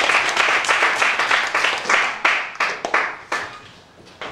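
Audience applauding, thinning to a few separate claps about two to three seconds in and dying away.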